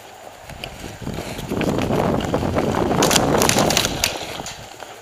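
Rumbling wind and handling noise on a body-worn camera's microphone, swelling for a couple of seconds in the middle, with a quick run of sharp clicks near its peak.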